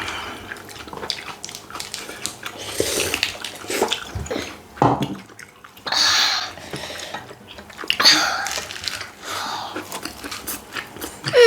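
Close-miked eating sounds: wet chewing and mouth noises in irregular bursts.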